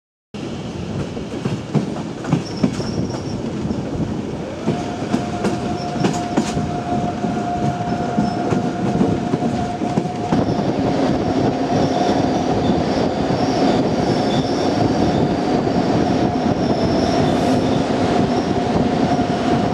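Train running on the rails, with wheels clattering over the rail joints. A few seconds in, a steady whine joins the clatter and holds on.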